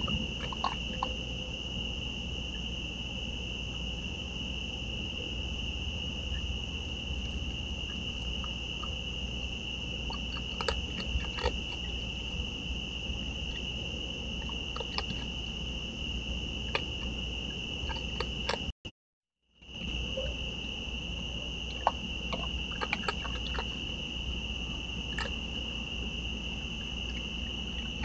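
Raccoons eating dry food from dishes, with scattered clicks and crunches as they chew and nose the bowls, over a steady high insect trill. The sound drops out for about a second roughly two-thirds of the way through.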